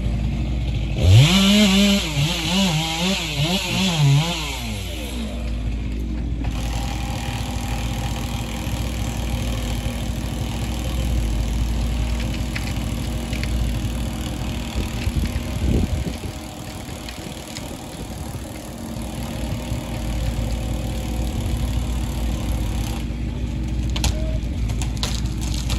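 A chainsaw engine revs up and down for a few seconds, starting about a second in, over the steady low drone of engine-driven forestry machinery working out of sight.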